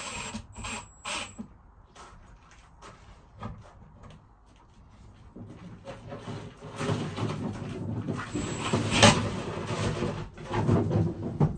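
Cordless drill boring a pilot hole through a drawer runner into the wooden drawer side: a few short bursts at the start, then a longer run of drilling from about halfway through until near the end.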